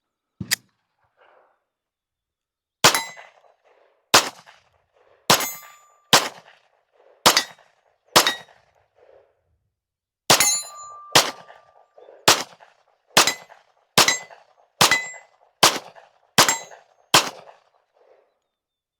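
Ermox XFire Defense 9mm pistol, an all-metal Glock 19 clone, firing Blazer 115-grain rounds in steady semi-automatic shots about a second apart: six shots, a short pause, then nine more slightly faster. A few shots are followed by a brief ringing tone.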